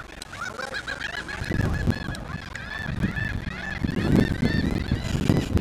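A flock of birds calling in a rapid, overlapping chorus of short honk-like calls. A low rumbling noise, like wind or handling on the microphone, builds underneath from about a second and a half in and grows louder near the end.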